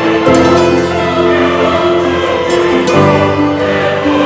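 Background music: a choir singing long held chords over instruments, the chord changing about a third of a second in and again about three seconds in.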